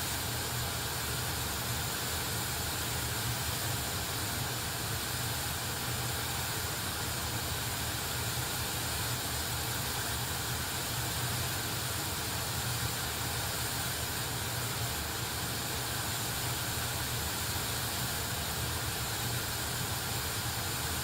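Pink noise test signal played through a Sony SRS-XB22 Bluetooth speaker with EXTRA BASS mode on: a steady, even hiss with a strong low bass band. It cuts off suddenly at the end.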